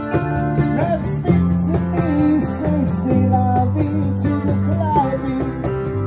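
Live band playing an instrumental passage: a lead guitar line with bending notes over strummed acoustic guitar, a steady bass line and an even percussion beat.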